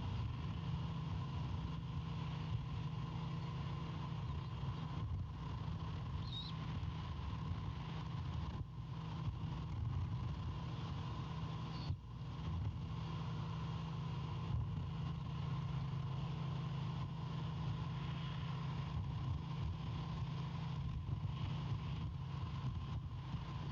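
Wind buffeting an outdoor nest-camera microphone: a steady low rumble with hiss, over a faint constant electronic tone. A few very brief, faint high chirps come through.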